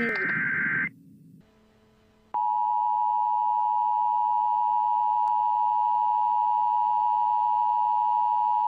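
Emergency Alert System alarm: the last of the harsh digital header bursts ends about a second in, then after a short pause the steady EAS attention tone starts about two seconds in and holds.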